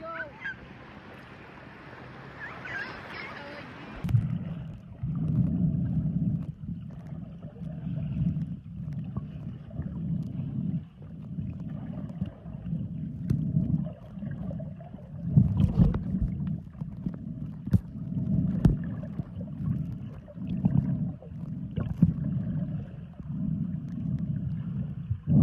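Muffled underwater sound of a camera held just under the sea surface: low rushing water rising and falling in surges about once a second, with a few sharp clicks. For the first few seconds, before it goes under, there are faint surface sounds and a brief voice.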